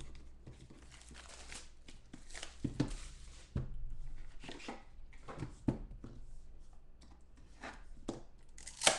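Plastic shrink wrap torn off a sealed trading-card box and crinkled, with several sharp taps of the box being handled, the loudest near the end.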